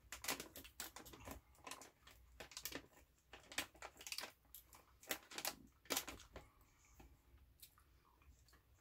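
Faint, irregular clicks and crinkles of a plastic gummy-candy package being handled while a sour gummy is picked out, thinning out over the last few seconds.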